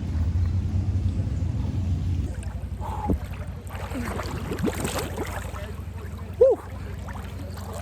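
River water rushing and splashing, with a few short voices calling out.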